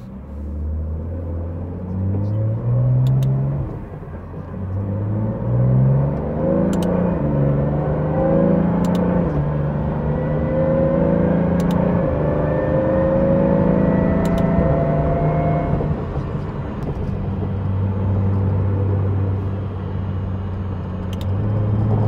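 BMW 135i's turbocharged inline-six, heard inside the cabin, accelerating through several upshifts of the dual-clutch gearbox: the engine pitch climbs, drops at each shift and climbs again. It then settles to a steady cruise for the last several seconds.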